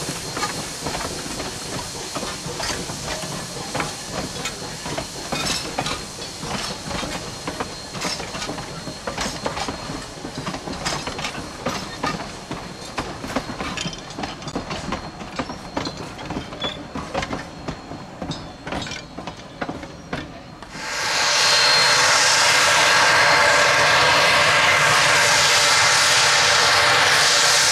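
Passenger coaches rolling past, their wheels clicking unevenly over the rail joints. About three-quarters of the way through, this gives way abruptly to a loud, steady hiss: a steam locomotive blowing a long jet of steam out sideways, a boiler blowdown.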